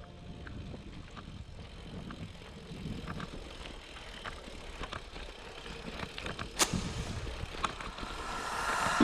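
Bicycle riding on a rough gravel track: steady tyre rumble with scattered ticks and rattles from the bike, and one sharp click about six and a half seconds in.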